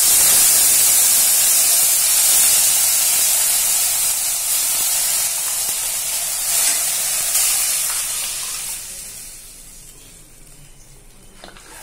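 Hot coconut-oil tempering of mustard seeds, dal and dried chillies in a steel kadai sizzles and hisses loudly as ladlefuls of buttermilk curry are poured in. The sizzle dies away about nine seconds in, once the liquid has cooled the oil.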